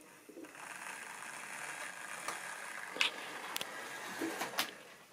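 Model railway train running on the track: a steady rush of motor and wheels, with about five sharp clicks, the loudest about three seconds in.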